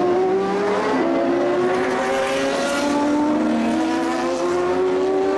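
Several race car engines accelerating past at once, among them a Corvette GT racer, their pitch climbing through the gears and dropping at each upshift.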